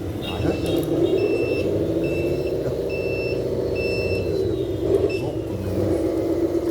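Sound unit of a 1/14-scale Lesu Hino 8x8 RC dump truck playing a diesel engine running, with a run of high reversing beeps, about five in a row, starting about a second in.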